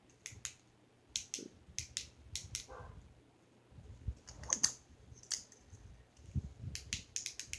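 Irregular sharp clicks and taps, more than a dozen, scattered at first and bunched close together near the end.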